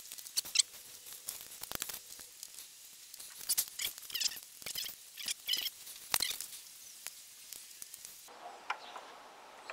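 Irregular small metallic clicks and scrapes of a bolt being fiddled into the ignition switch mounting on a motorcycle, its thread refusing to catch. They stop about eight seconds in, leaving a faint hiss.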